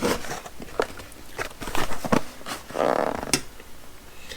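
Multi-tool set packaging being handled and turned over: scattered clicks and short rustles, with a longer rustle about three seconds in.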